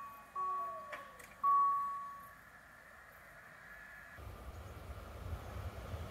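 Level-crossing warning bell striking about once a second, with two more fading strokes before it falls silent as the barriers come fully down. From about four seconds in, a low rumble from an approaching train grows steadily louder.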